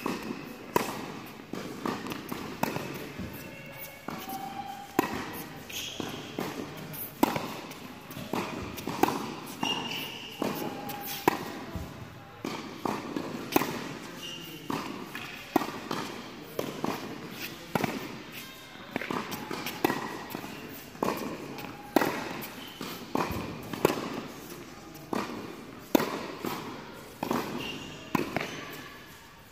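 Tennis volley rally on an indoor court: sharp racket-on-ball strikes about once a second, with the ball sometimes bouncing on the court.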